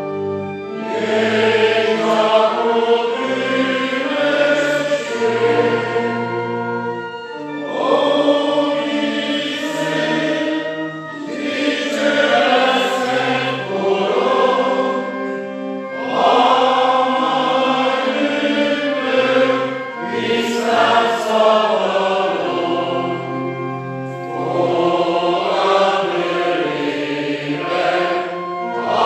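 Church congregation singing a slow hymn in unison, led by the cantor, with sustained pipe organ accompaniment, phrase by phrase with short breaths between lines.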